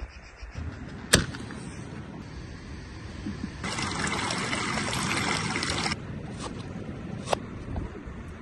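Water trickling, growing louder for about two seconds in the middle, with a sharp knock about a second in and another near the end.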